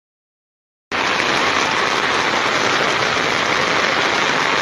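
Near silence for about the first second, then heavy rain falling steadily onto floodwater.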